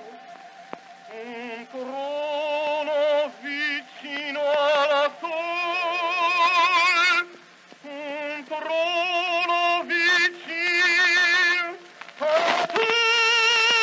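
Male operatic voice singing phrases with a wide vibrato, broken by short breaths, then settling on a long held high note near the end. It is an old recording with surface crackle.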